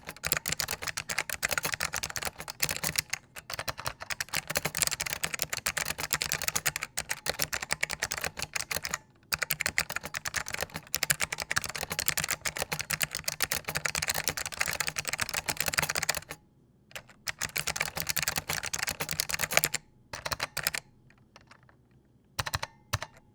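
Fast typing on a SIIG MiniTouch keyboard with clicky white Alps switches: a dense stream of sharp key clicks, broken by short pauses about 9, 16 and 20 seconds in. Over the last couple of seconds there are only a few scattered keystrokes.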